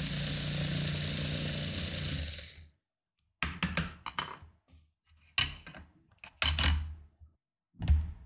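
Lego Power Functions XL motor driving a 24:8 gear train that spins a minifigure at high speed: a steady whirring hum that fades out and stops about two and a half seconds in as the run ends. Then plastic Lego parts click and knock as they are handled, with a heavy thunk near the end as steel rings are set down.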